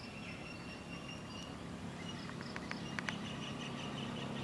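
Faint outdoor ambience: thin, high, steady calls over a low steady hum, with a few light clicks about two and a half to three seconds in.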